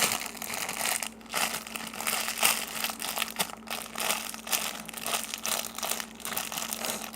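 Packaging crinkling and crackling as a parcel's contents are handled and unwrapped by hand, a dense run of small rustles and crackles throughout.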